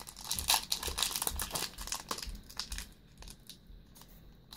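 Foil wrapper of a Yu-Gi-Oh booster pack crinkling as it is handled, with many small crackles over the first three seconds, then quieter.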